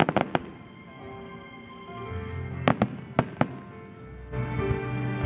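Firework shells bursting in sharp bangs: a quick run of them at the start and four more a little past halfway. Music plays throughout and grows louder near the end.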